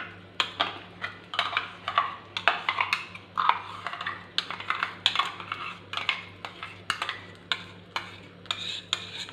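Metal spoon scraping and tapping against a container and a pan as a thick blended onion-tomato-cashew gravy is spooned into melted butter. The clinks and scrapes come irregularly, about two or three a second, over a faint steady hum.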